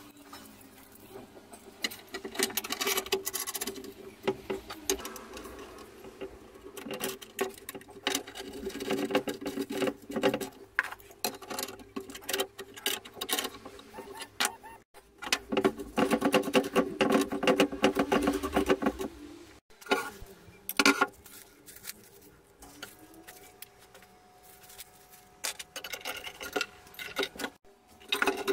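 Rapid metallic clicking and rattling of steel nuts and washers being run down a threaded rod and tightened with an adjustable wrench, in several bursts with short pauses between.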